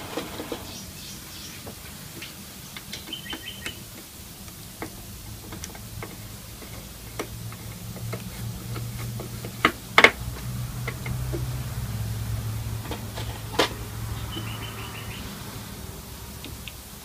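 Scattered clicks and knocks of a valve radio's cabinet and parts being handled and fitted back together, with two sharper knocks about ten seconds in and again a few seconds later. A low hum swells through the middle, and brief high chirps come twice.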